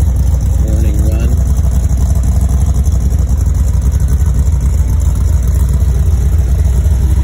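Early Ford Bronco's engine idling, a steady low rumble with an even, rapid pulse from the exhaust.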